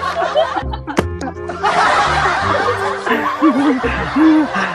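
People laughing over background music, with a brief dropout and a sharp click about a second in.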